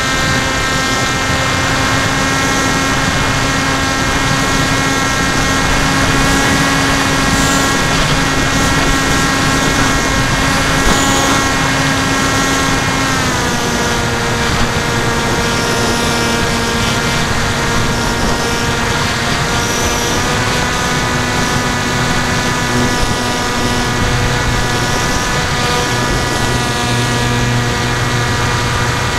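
Electric motor of an FX-61 Phantom flying wing, an NTM 2836 1200kv brushless outrunner spinning a 10x5 APC propeller, heard in flight from the onboard camera: a steady whining hum over a rushing hiss. The pitch drops a little about 13 seconds in and then holds.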